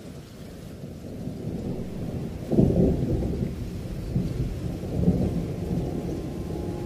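Rolling thunder: a low rumble that swells to a loud peal about two and a half seconds in, with another swell around five seconds.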